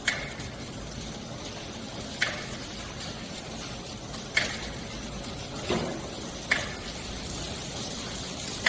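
Three-side sealing packaging machine running, with a sharp mechanical clack about every two seconds as it cycles, over a steady machine hum.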